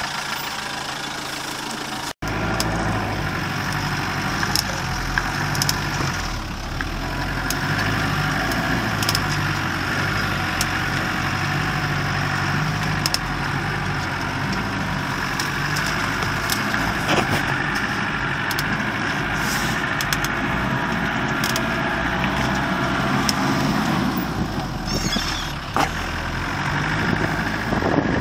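Land Rover Defender engine running steadily as the truck crawls along a rough off-road track, heard from inside the cab, with occasional short knocks and clicks. The sound cuts out for an instant about two seconds in.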